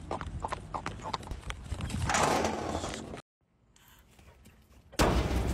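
Horse's hooves clip-clopping on an asphalt road under a rider, a run of sharp, fairly regular strikes. About two seconds in a louder rushing noise takes over, and the sound cuts off a little after three seconds; near the end a sudden loud noise starts.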